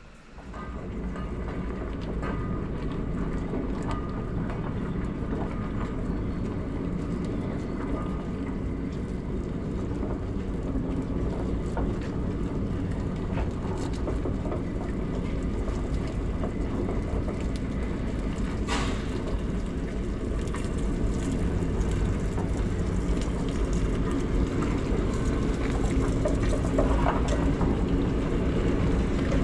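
LMS Black 5 4-6-0 steam locomotive moving slowly tender-first along the shed road: a steady rumble of wheels on rail and running gear that grows louder as it comes closer. There are a few light clicks and one sharp clank about two-thirds of the way through.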